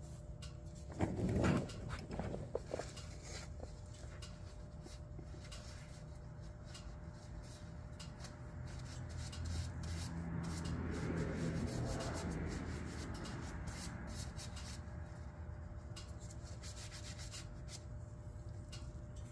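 Used engine oil draining in a steady stream from the UTV's drain hole onto a plastic drain pan, a faint continuous splatter that swells a little in the middle. A brief louder handling sound comes about a second in.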